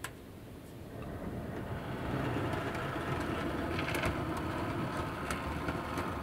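Model railway train, a grey two-car unit, running under power over newly laid Peco points and a double slip. Its motor hums steadily and its wheels click over the rail joints and crossings. There is a sharp click right at the start.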